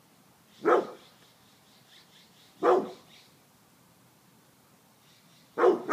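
A dog barking: single sharp barks about two seconds apart, three in all, the last near the end.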